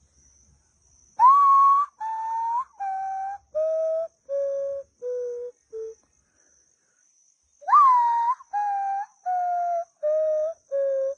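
Hand-held call whistle imitating the common potoo (urutau): two series of clear whistled notes, each note held about half a second, stepping down in pitch like the bird's mournful falling song. The second series starts about halfway through.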